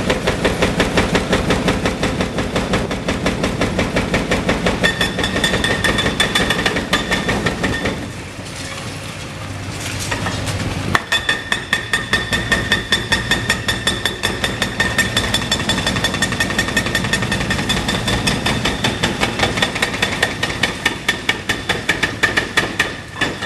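Excavator-mounted hydraulic breaker hammering on the reinforced concrete of a bridge deck: a rapid, steady train of blows with a metallic ring, over the excavator's engine. The hammering pauses about a third of the way in and starts again with a sharp blow a few seconds later.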